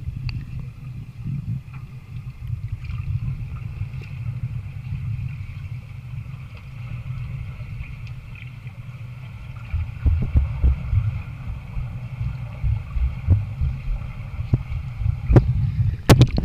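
Muffled underwater sound of pool water moving and knocking against a submerged camera: a low rumbling that grows more uneven and thumping about two-thirds of the way through as the people move. A few sharp clicks come near the end.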